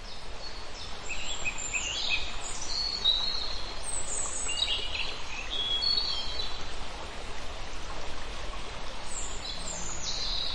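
Nature ambience of several birds chirping and whistling over a steady rushing background noise, fading in at the start.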